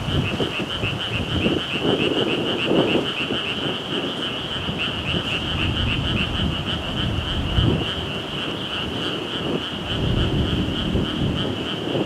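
Strong, gusty wind rumbling on the microphone, swelling and easing, with a steady, high-pitched pulsing trill running under it.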